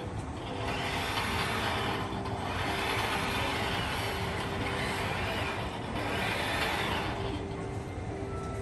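Whirring from a robot coffee stand's machinery, the robot arm and coffee machine at work, coming in several swells a second or two long over a steady hum.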